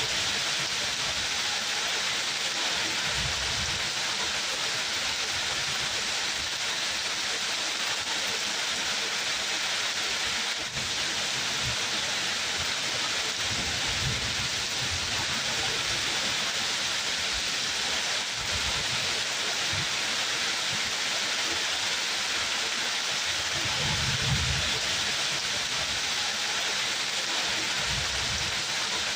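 Steady rain falling, an even hiss, with a few brief low rumbles, the strongest about 24 seconds in.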